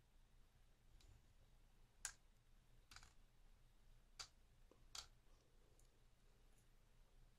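Five faint clicks roughly a second apart: small brass lock pins and a pick or tweezers handled over a pinning tray while a pin-tumbler lock is taken apart.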